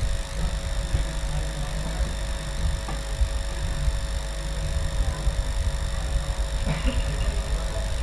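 Steady low rumble with irregular low thuds, under a constant electrical hum and high whine.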